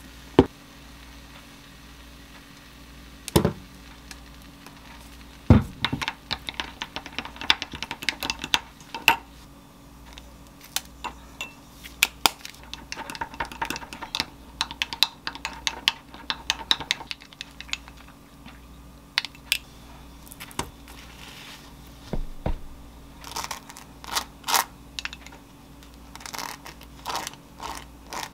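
A spoon stirring a mayonnaise sauce in a small glass bowl, clicking and scraping against the glass in quick irregular strokes, with a few louder knocks early on. Near the end the spoon scrapes the sauce across toasted bread.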